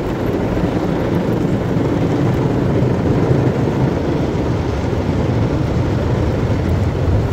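Automatic car wash running, heard from inside the car's cabin: a loud, steady noise of the wash brushes and water spray working against the bodywork.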